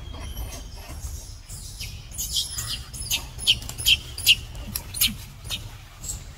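A quick series of short, high-pitched animal chirps, thickest from about two to five seconds in, over a steady low rumble.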